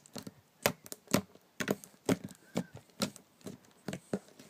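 Slime being squeezed and poked by hand, giving an irregular run of sharp clicks and pops, about three or four a second.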